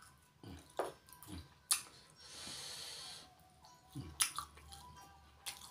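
Close-miked eating sounds as a small hot chili is bitten and chewed: wet mouth clicks and lip smacks, and a hiss about two seconds in that lasts about a second. Faint background music plays underneath.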